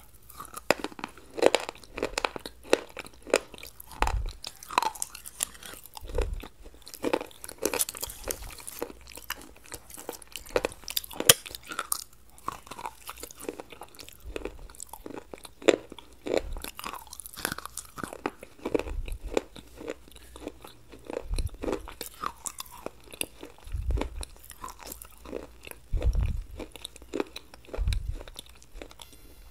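Close-miked chewing and crunching of crisp food, KFC fried chicken with chaat papdi, in irregular crackling bites with a few dull low thumps, most of them near the end.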